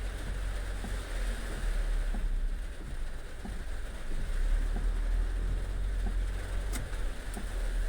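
Heavy rain, a steady hiss with scattered drop ticks, over a low rumble of wind on the microphone. There is a sharp click about seven seconds in.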